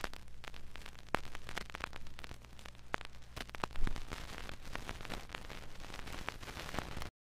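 Vinyl LP surface noise with no programme: scattered crackles and pops over a faint hiss and a steady low hum. It cuts off abruptly just before the end.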